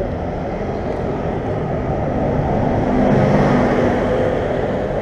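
City street traffic: a motor vehicle passes close by, its engine and tyre noise swelling to a peak about three seconds in and then easing off over a steady traffic hum.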